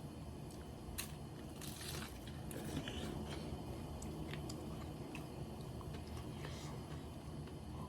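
Close-miked eating of karaage (Japanese fried chicken): crisp crunching bites and chewing. A sharp crunch comes about a second in, a cluster of crunches follows over the next couple of seconds, and another comes near the end, with quieter chewing between.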